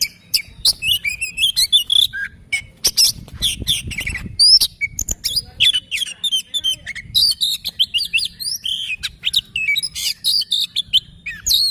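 Oriental magpie-robin (kacer) singing a fast, varied song of chirping, whistled notes mixed with sharp clicks, with hardly a pause.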